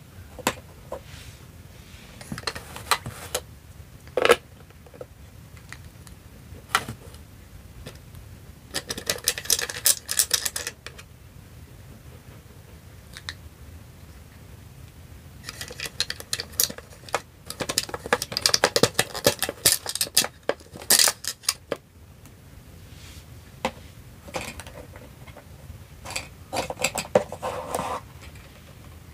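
Small hard-plastic toy food pieces and toy kitchen parts being handled: scattered clicks and taps, with two long stretches of rapid clicking and clattering, about a third of the way in and again in the middle.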